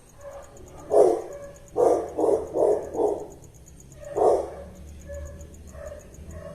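A dog barking: one bark about a second in, four quick barks in a row, then one more a little after four seconds.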